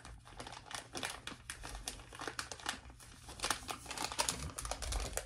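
Crinkling of a black plastic bait pouch being handled and turned over in the hands: a dense run of irregular crackles.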